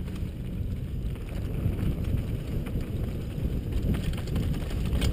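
Wind buffeting a helmet-mounted camera's microphone over the rumble and rattle of a downhill mountain bike rolling fast over a dirt trail, with a few sharper clatters about four seconds in.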